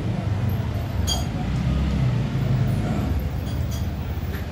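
Spoons and forks clinking on plates and bowls: one sharp ringing clink about a second in and a few lighter clinks later, over a low steady background rumble.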